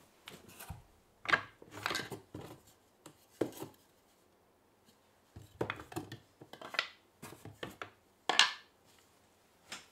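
Wooden offcuts knocking and scraping against each other as scraps are rummaged through and pulled from a box. The clatters come irregularly, and the sharpest knocks fall about a second in and near the end.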